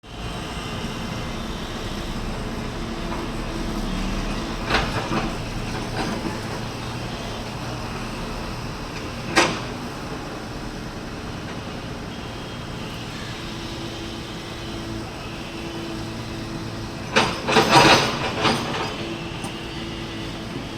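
Building-site noise: a steady mechanical background rumble, broken by a few sharp knocks and, later on, a quick run of clattering impacts.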